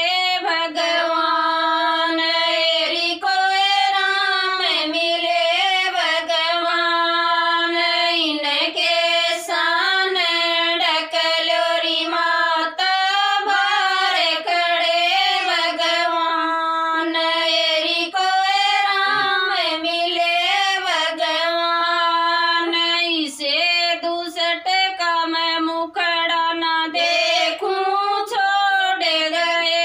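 Women's voices singing a Haryanvi bhajan together, in a slow, drawn-out melody with no instruments.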